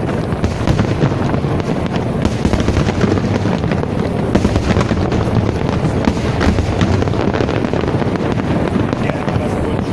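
Fireworks display: a dense, continuous crackle of many rapid bursts and bangs with no pause.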